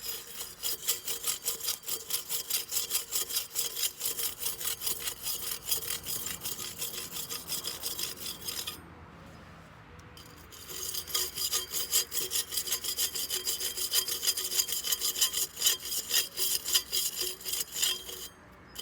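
Hand saw cutting firewood in quick back-and-forth rasping strokes, about three a second. It stops for about two seconds midway, then carries on.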